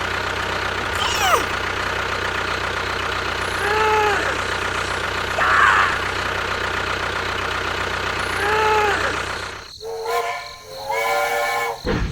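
A mini tractor's engine runs steadily, with two short pitched sounds rising and falling over it about four and nine seconds in. The engine cuts out near ten seconds in and is followed by a couple of pitched, voice-like sounds.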